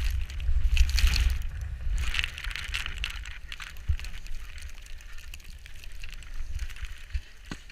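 Wind buffeting the microphone with a low rumble, over the hiss and scrape of edges sliding and carving on snow during a downhill run; the scraping eases off over the last few seconds.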